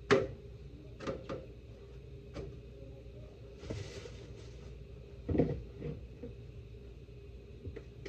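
Sharp knocks and clacks of tortilla-making work, the loudest right at the start and another about five seconds in, with a short hiss just before the middle over a faint steady hum.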